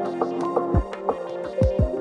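Background music with a beat: deep kick-drum thumps and sharp ticking percussion under held notes.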